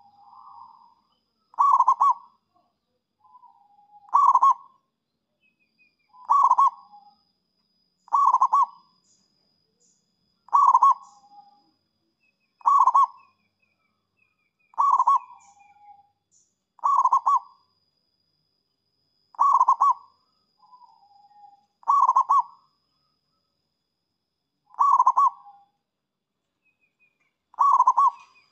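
Zebra dove (perkutut) cooing: a short call repeated about every two seconds, around thirteen times, each call trailing off into a softer, lower note.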